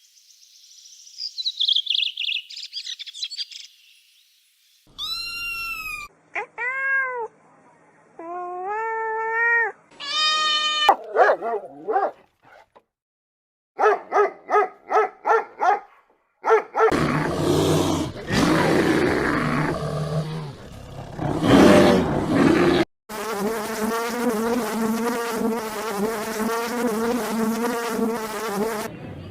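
A string of different animal calls, one after another: high chirping, several short calls that rise and fall in pitch, a quick run of repeated calls, then one long wavering call.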